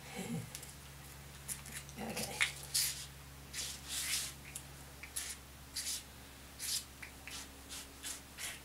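Plastic ketchup packet and fingertips rubbing and dragging across paper as ketchup is squeezed out and smeared into lines: soft, irregular scratchy rustles.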